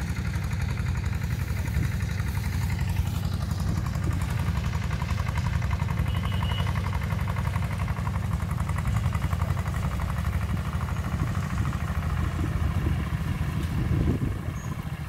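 Tractor engine running steadily while tilling a dry field, a continuous low rumble with a fine, even pulse.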